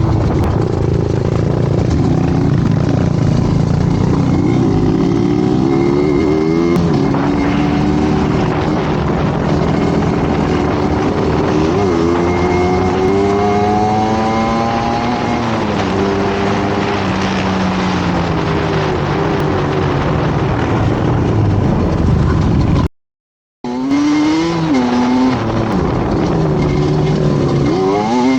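A motor vehicle engine running under changing load, its pitch repeatedly rising and falling as it revs up and eases off. The sound cuts out abruptly for about half a second roughly 23 seconds in.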